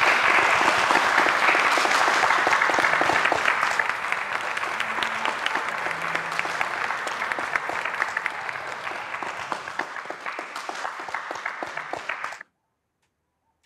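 A small group of people applauding, dense at first, then thinning into separate claps as it fades, before stopping abruptly near the end.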